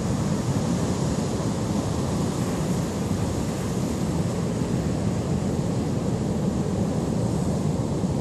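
Heavy Pacific storm surf breaking on offshore rocks: a steady, low rush of noise with no let-up.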